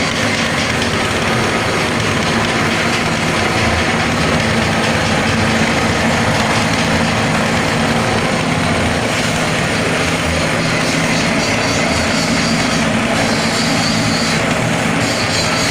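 Mini rice-husk crusher machine running steadily, a loud continuous mechanical whir over a low motor hum, with the upper hiss shifting slightly after about nine seconds.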